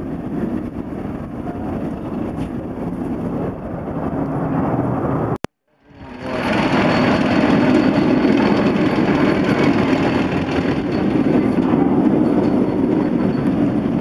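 Steady motor vehicle engine and road noise. It drops out briefly about five and a half seconds in and comes back louder.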